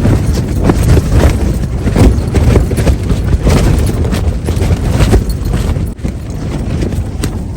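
Strong wind buffeting the microphone in a loud, continuous rumble, with sharp knocks or slaps recurring about once or twice a second.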